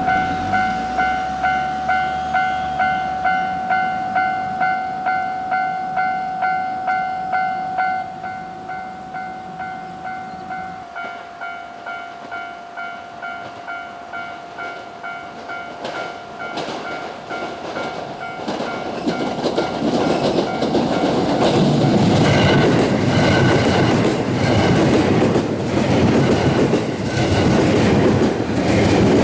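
Japanese level-crossing warning bell ringing at about two strikes a second, quieter from about eight seconds in. From about nineteen seconds a JR West 221 series electric train passes over the crossing, wheels clacking over the rail joints and rising to the loudest sound, with the bell still faintly heard under it.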